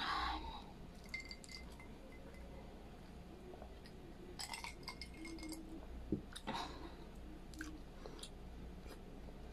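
A drinking glass clinks in small clusters with a brief thin ringing as it is lifted, drunk from and set down, among close mouth sounds of chewing and swallowing. A short breathy exhale comes at the very start, and a sharp knock and another breath come about six seconds in.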